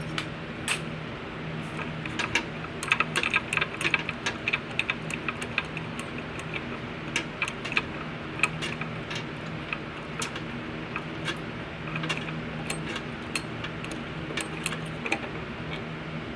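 Light metallic clinks and rattles of small grandfather clock parts being handled and fitted, in irregular clusters, over a steady low hum.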